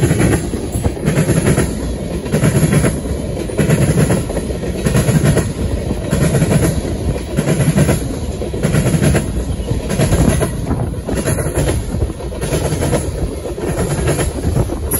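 Tank cars of a freight oil train rolling past, their wheels clacking over the rail joints in a steady rhythm of about one to two clacks a second over a low rumble.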